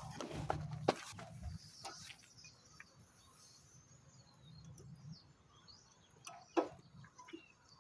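Faint clicks and knocks of hand work on a car's brake caliper and pads, the sharpest about a second in and another near the end, with birds chirping faintly in the background.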